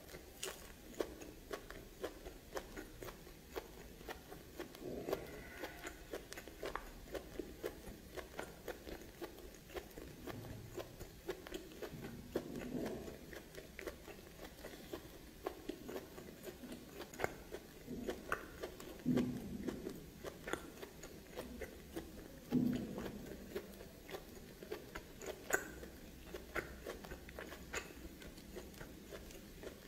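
A person chewing and biting steamed snake, with many irregular small clicks.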